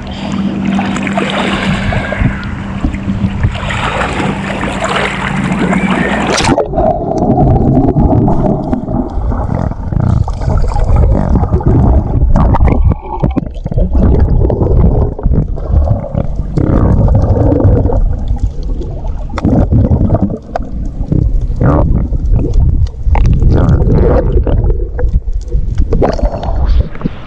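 Water splashing at the surface, then about six seconds in the sound turns suddenly muffled and low, with bubbling and small clicks and knocks, as the action camera goes under the sea.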